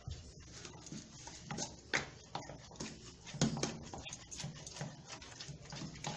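Homemade slime of glue, detergent and water being stirred in a pot, giving irregular sticky clicks and squelches.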